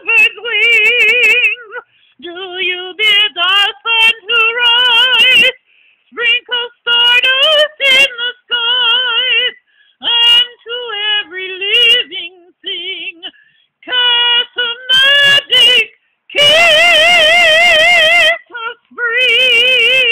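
An elderly woman singing a gospel hymn unaccompanied, holding long notes with a wide, wavering vibrato and stopping briefly between phrases. One loud held note near the end comes through with a rush of noise.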